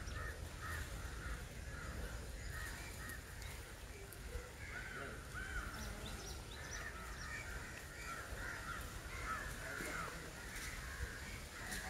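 Crows cawing: many short, overlapping caws throughout, over a low steady rumble.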